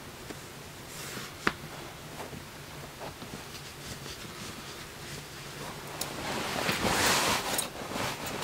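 Quiet room sounds: a single sharp click about one and a half seconds in and soft small movements, then a louder rustle of clothing near the end.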